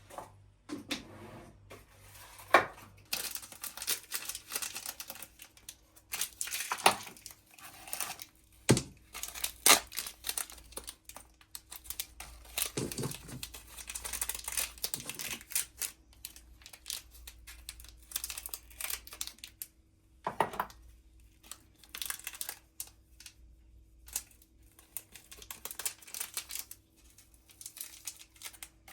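Paper or plastic packaging crinkling and tearing in kitchen handling, with irregular sharp knocks of things being set down.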